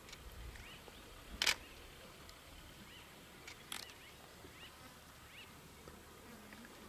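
Two camera shutter clicks about two seconds apart, the first the louder, over faint, repeated high chirps.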